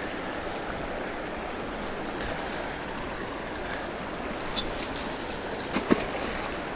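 Steady rush of flowing river water. Near the end come a few short clicks and rustles of handling as a rope-tied rake is swung and thrown into the shallows.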